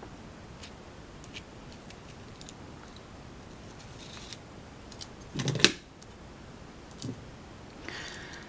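Small metallic clicks and taps from a challenge lock being taken apart with a shim and plug follower, with a louder clatter about five and a half seconds in as the plug comes out and its pins come loose.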